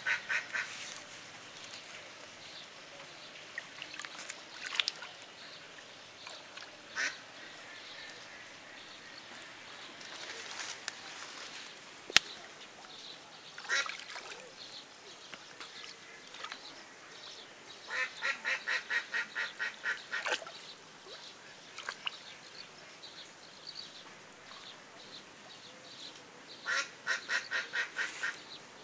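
Ducks quacking: quick runs of calls, about five a second, each run lasting two or three seconds, with single quacks in between. One sharp click comes about halfway through.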